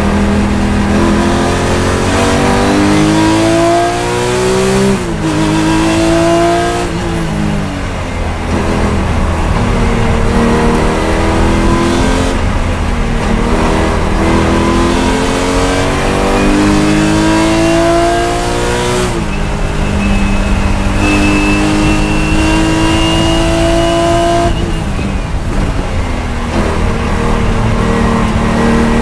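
Porsche 996 Cup car's flat-six engine heard from inside the cockpit, pulling hard on the throttle. Its pitch climbs steadily and then drops sharply, several times over, at each upshift or lift for a corner.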